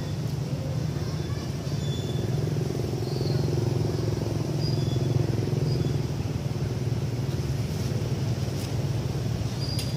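A motor vehicle engine running steadily with a low rumble. Faint short high chirps come now and then over it.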